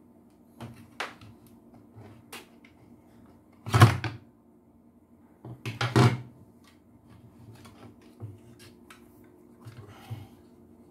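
Vacuum cleaner motor and plastic housing knocking and clattering as they are handled and pulled apart by hand. Scattered light clicks, with two louder clunks about four seconds in and again two seconds later.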